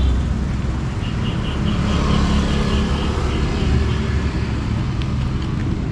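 Street traffic: a motor vehicle engine running close by, steady and low-pitched, swelling a little around the middle. A rapid series of short high chirps sounds for a couple of seconds about a second in.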